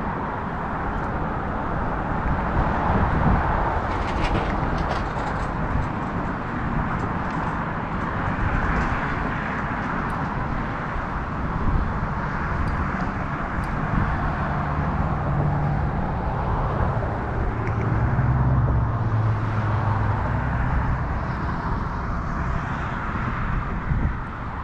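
Steady wind noise on the microphone, with a low engine-like hum that swells and fades in the middle and a few faint clicks.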